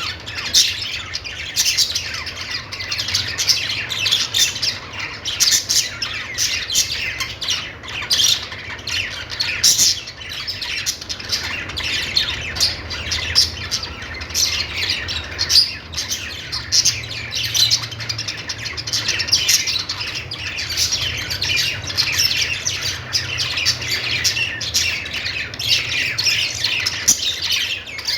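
A group of budgerigars chirping, warbling and squawking, with many short, overlapping calls in a continuous high-pitched chatter.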